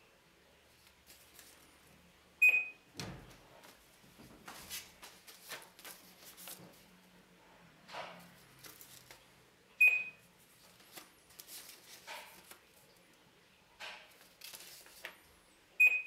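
Saveo Scan Motion omnidirectional barcode scanner giving three short high beeps, about six seconds apart, each one confirming a successful read of a code held up to it. Soft paper rustling comes between the beeps.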